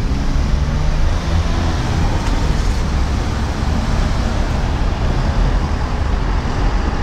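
Steady road traffic noise, a loud low rumble of vehicles with a hiss of tyres and engines.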